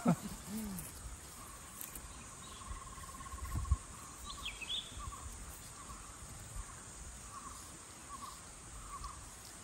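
Forest ambience: an insect trills in steady repeated pulses, a bird gives a short call about halfway through, and a single low thump sounds just before it.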